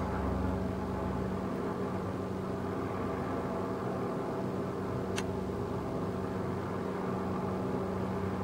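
Helicopter engine and rotor droning steadily, with a brief click about five seconds in.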